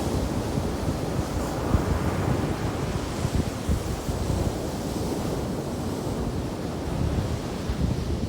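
Ocean surf washing onto a beach: a steady, dense rush of breaking waves, with wind buffeting the microphone in low thumps.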